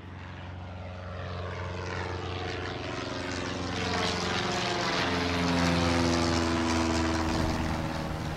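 Aircraft engines running, growing steadily louder to a peak a little past the middle, with several tones that slide down in pitch in the second half.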